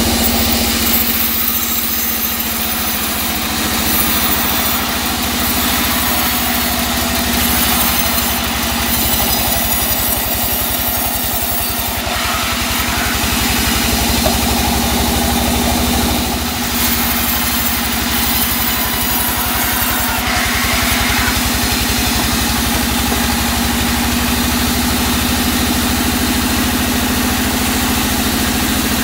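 Large vertical band saw running with a steady hum while ripping a teak log, the blade's high cutting hiss coming and going in stretches of a few seconds as the log is pushed through.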